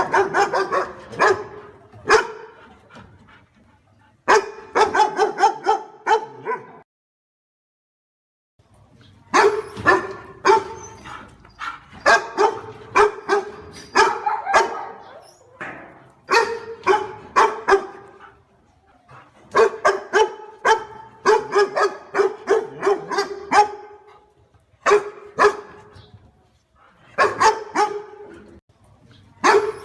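A dog barking in quick runs of repeated barks, all at much the same pitch, with a silent break of about two seconds some seven seconds in.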